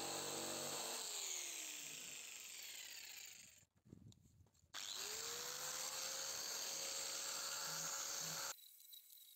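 Bosch jigsaw cutting a wooden board, its motor then winding down over a couple of seconds. After a short pause, an angle grinder with a sanding pad spins up and runs steadily, sanding the wood, then stops abruptly near the end.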